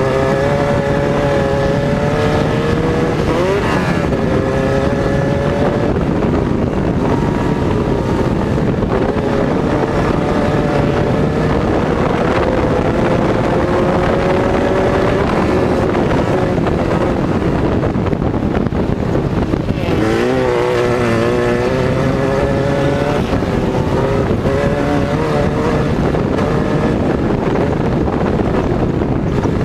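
Air-cooled Volkswagen flat-four engine of a dirt-track race buggy running hard at high revs under load, with wind buffeting the microphone. The engine note drops and climbs back twice, about three seconds in and again around twenty seconds in.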